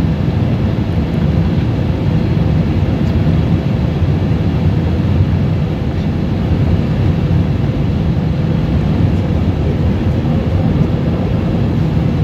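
Steady cabin noise of an Airbus A320-214 in its climb after takeoff, heard from a window seat over the wing: the CFM56-5B turbofans and the rush of air blend into an even low rumble with a faint steady hum in it.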